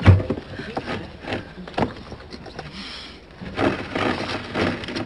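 Gravediggers' tools working at a grave: a heavy thump at the start, then scattered knocks and a busier stretch of knocking and scraping near the end.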